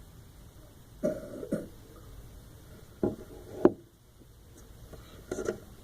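A person coughing in three short bursts, the second ending in a sharp click.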